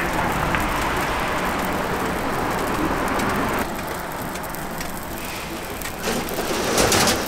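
Hotteok frying in oil on a flat steel griddle, a steady sizzling hiss with street traffic behind it. About halfway through the sound suddenly drops quieter, and near the end comes a run of harsher scraping rasps, like a metal spatula working on the griddle.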